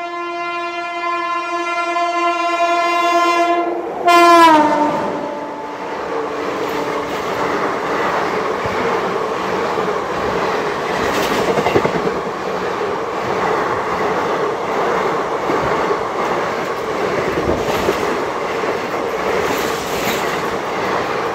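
Electric-hauled express train on the adjacent track sounding one long horn blast as it comes up. The horn drops in pitch as the locomotive passes close by about four seconds in. Its coaches then rush past at speed with steady wheel noise and clickety-clack over the rail joints.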